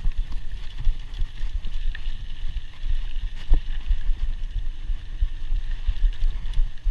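Scott Scale 960 hardtail mountain bike rolling fast over a dirt pump track: a rough low rumble with irregular knocks from the tyres, frame and chain, and a sharp click about halfway through.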